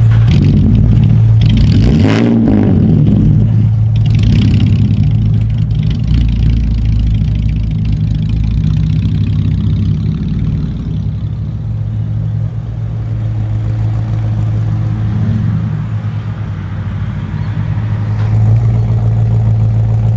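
Straight-piped Holden Commodore SV6 V6 engine running with no mufflers: revved twice in the first few seconds, then held at a steady, loud idle.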